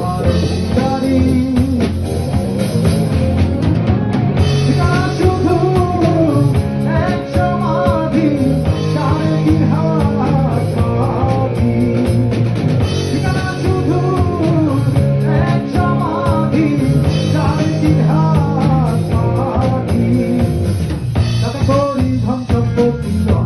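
A rock band playing a song on drum kit and electric guitar, with a voice singing a melody through most of it and instruments only near the start and end.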